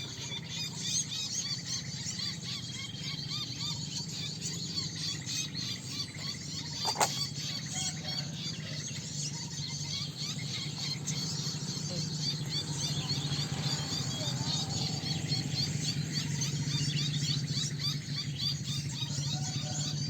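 Many small birds chirping and twittering densely and continuously over a steady low hum that grows louder in the second half. A single sharp click comes about seven seconds in.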